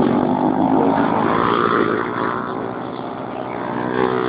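Racing motorcycle engines running at high revs, several overlapping pitches wavering up and down, swelling slightly near the end.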